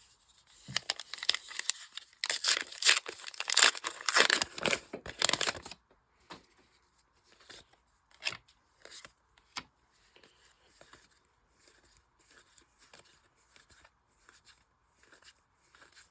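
A trading-card booster pack wrapper being torn open and crinkled for about five seconds, followed by faint light ticks and rustles of cards being handled.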